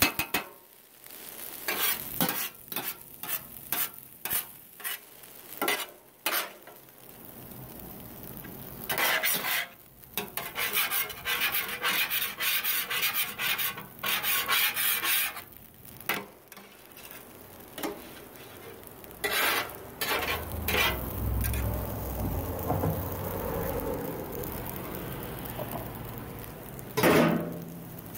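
Metal spatula scraping and chopping across a Blackstone flat-top griddle while fried rice sizzles on the hot steel. Quick separate scrapes come first, then a denser stretch of steady scraping, and a louder clatter near the end.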